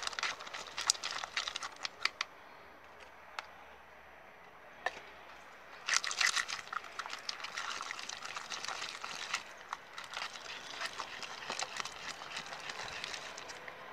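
Freshly activated blue glitter slime being stirred in a clear plastic cup, giving sticky crackling clicks in spells: busy at first, quieter for a few seconds, loudest about six seconds in, then fading. The slime has set enough to start pulling away from the sides of the cup.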